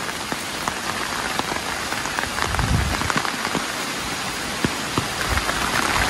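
Rain falling on an umbrella held overhead: a steady hiss with many separate drops ticking on the canopy.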